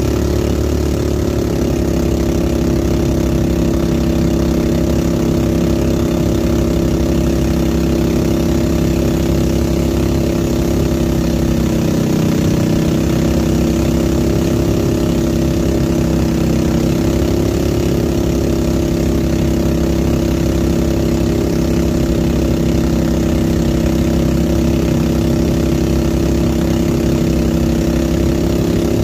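A small engine running steadily at a constant pitch, wavering slightly about twelve seconds in.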